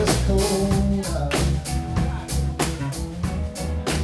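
Live band playing a song: guitar and drum kit over a bass line, with drum hits at a steady beat.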